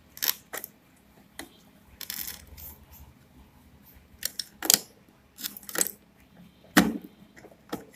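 Several sharp clicks and taps from an ATX power connector and its bundle of cables being handled and pressed into the motherboard's power socket. A single click near the end is the loudest.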